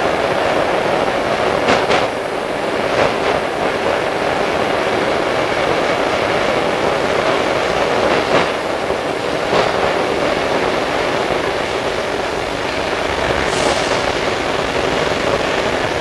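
Interior running noise of a Sydney R set double-deck electric train car under way: a steady rumble with a few short sharp clicks at irregular moments.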